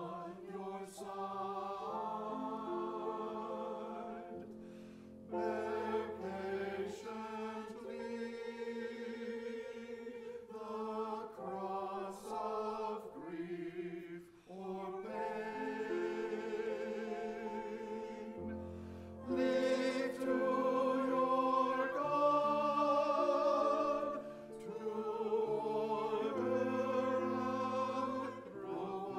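Small mixed church choir singing an anthem in harmony, with grand piano accompaniment; the singing swells louder a little past the middle.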